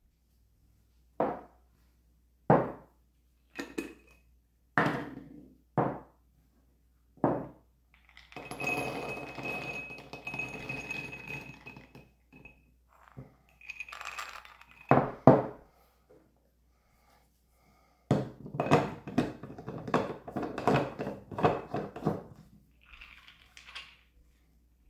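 Kitchenware knocking and clinking on a counter: six separate knocks over the first seven seconds, a few seconds of rustling, two sharp knocks about halfway, then a quick run of clatter near the end.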